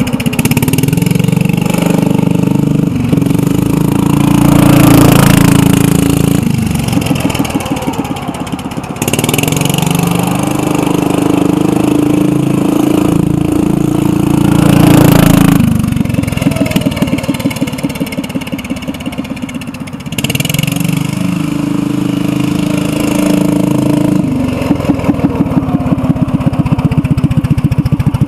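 The Commuter TE390 three-wheeler's 341 cc Kawasaki industrial engine runs loud through a straight-pipe exhaust as it is ridden. Its note rises and falls with the throttle and swells to its loudest twice. Near the end it settles to a slow idle with separate firing beats.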